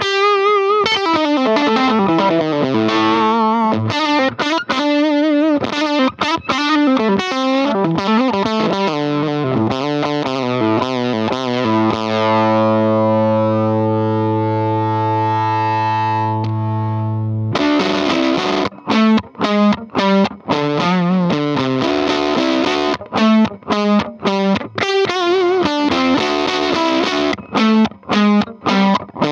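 Semi-hollow electric guitar played through a Bell & Howell film-projector valve amplifier converted for guitar: quick lead lines, then one chord left ringing for about five seconds, then choppy rhythm chords with short stops between them.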